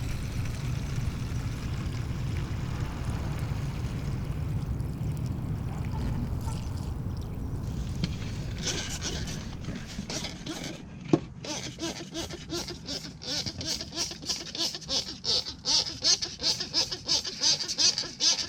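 Pressure washer running and spraying, a steady motor hum with the hiss of water. About halfway it fades out and background music with a steady beat comes in.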